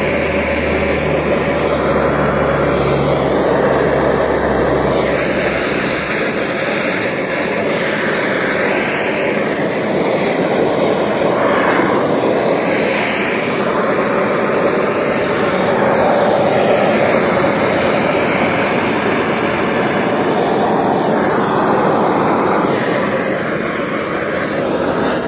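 Hand-held propane torch burning steadily, its flame played over cedar to char the surface of the wood.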